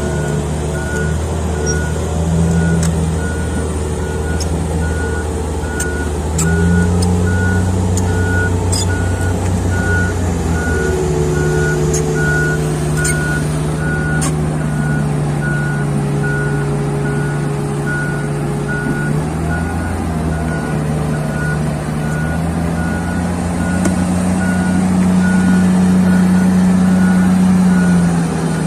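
Komatsu PC2000-7 mining excavator's diesel engine running under changing load, its pitch rising and falling and loudest near the end, with its warning alarm beeping steadily about twice a second. A few sharp metallic clanks come in the first half.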